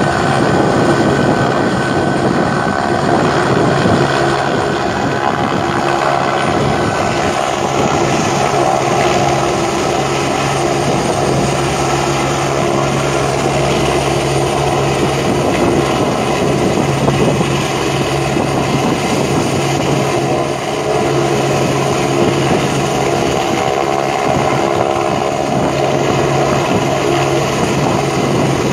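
Army helicopter hovering low, its rotors and turbine making a loud, steady drone with a constant low hum and rapid fluttering chop.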